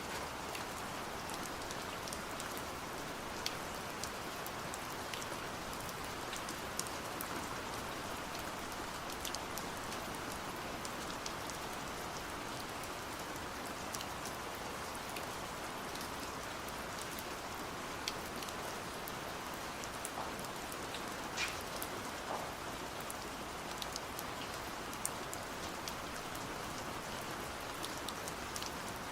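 Steady autumn rain, with individual drops pattering and clicking distinctly over the even hiss.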